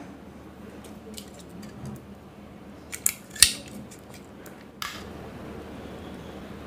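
A few sharp, small metallic clicks and snaps, the loudest about three and a half seconds in, from fingers working at the ring-pull of an aluminium soda can, which breaks off instead of opening the can.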